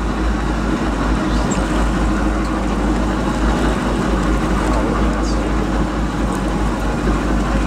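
Steady drone of a trolling fishing boat underway, its engine running under a heavy fluttering rumble of wind buffeting the microphone.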